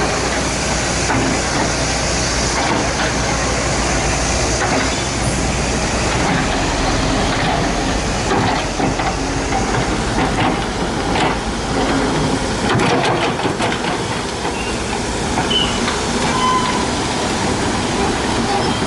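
Komatsu 130F excavator's diesel engine running steadily under load with hydraulic hiss, and a few sharp knocks of rock against the bucket about halfway through.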